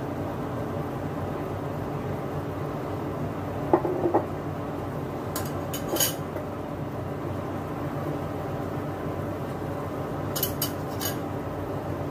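A metal spoon and glass sauce bottles clinking against a stainless steel pot: a few light clinks about four and six seconds in, and a quick run of three near the end, over a steady hum.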